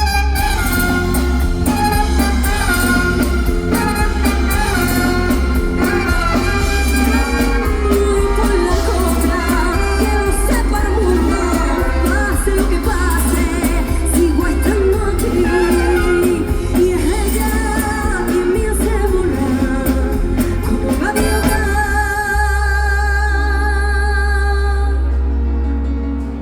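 Festival dance band (orquesta) playing loud amplified pop music, with lead singing over bass and drums. Near the end the singing stops and held chords ring over a steady bass, fading out at the very end.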